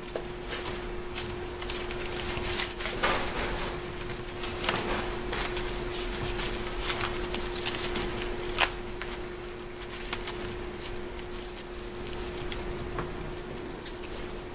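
Kittens pawing, scrabbling and tugging at a paper pad on a crate floor: irregular crinkling and rustling with sharp little crackles. A steady hum sits underneath.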